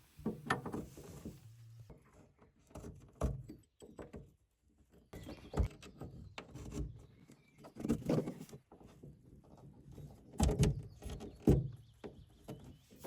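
Hose connector fittings and hoses being handled and fitted: a series of irregular knocks, clicks and clatters with short pauses between them.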